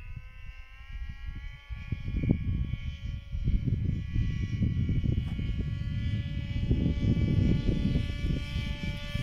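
Electric motor and propeller of an FX-61 Phantom RC flying wing buzzing steadily in flight, its pitch climbing a little over the first two seconds. Gusty wind rumbles on the microphone.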